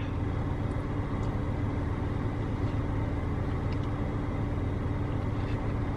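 Steady low hum of a parked car's engine idling, heard from inside the cabin.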